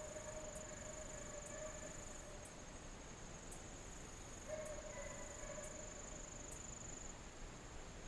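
Insects trilling in a steady, high-pitched drone. A faint, distant drawn-out wail comes and goes twice, each time for about two seconds.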